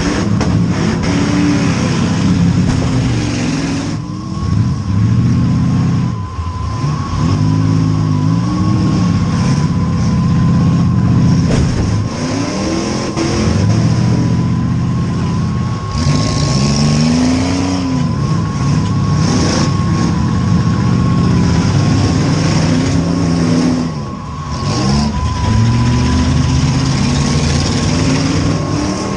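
V8 demolition derby car engines revving hard and backing off over and over as the cars accelerate and reverse. A thin steady high whine runs through most of it.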